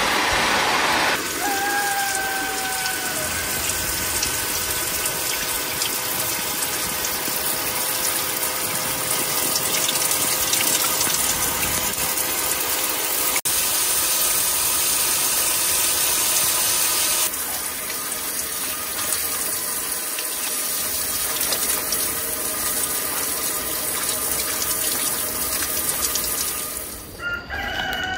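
Outdoor camp shower spraying water onto a gravel floor strewn with pine needles: a steady hiss of falling water, with a faint steady whine underneath.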